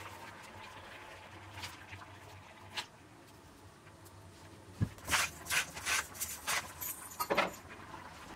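Water boiling in a pot, a steady bubbling hiss, with a few short splashes as nests of egg fettuccine go in. About five seconds in comes a run of short, louder sounds lasting a couple of seconds.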